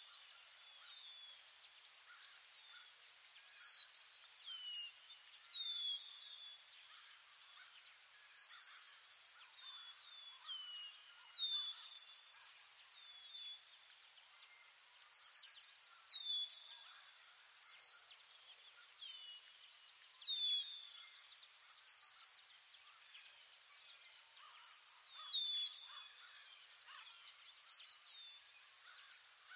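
Forest ambience: a steady, fast-pulsing high insect trill with many short bird whistles that slide downward in pitch, repeating throughout.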